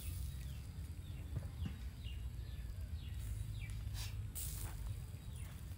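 Charcoal fire under fish on a wire grill rack, giving a few sharp crackles and pops over a low steady rumble, with short falling chirps throughout.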